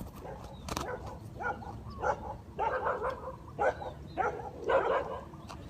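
A dog barking, about six barks in a loose series over a few seconds.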